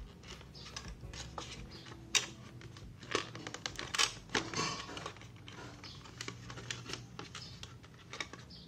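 Irregular light clicks and taps as a 2.5-inch SATA SSD and its packaging are handled.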